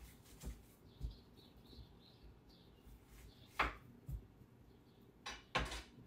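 Fingertip taps on the HP Pavilion x360's glass touchscreen: about six short, soft knocks at uneven spacing. The loudest comes about three and a half seconds in, and a close pair follows near the end.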